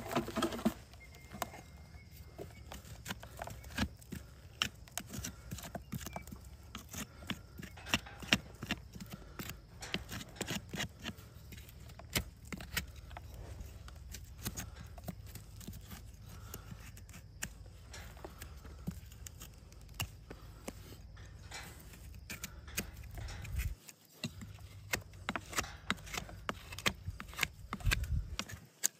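A farrier's hoof knife paring a horse's hoof: a long run of short scraping cuts and clicks at an uneven pace, over a low steady rumble.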